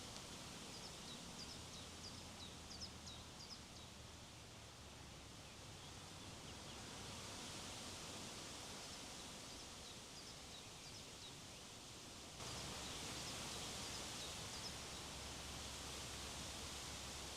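Wind rushing steadily, with small birds giving short, high chirps here and there. About two-thirds of the way in the wind noise steps up suddenly and stays louder.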